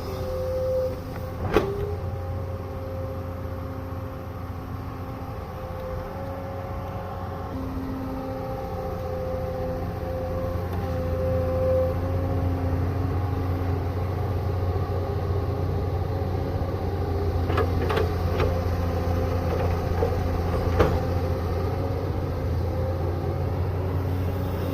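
Excavator's diesel engine running steadily, with a wavering hydraulic whine over it and a few short clanks of the bucket or arm.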